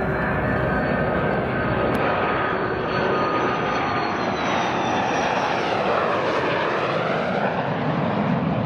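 Jet aircraft engines running loudly and steadily, with a high whine that falls in pitch about halfway through, as of a jet passing.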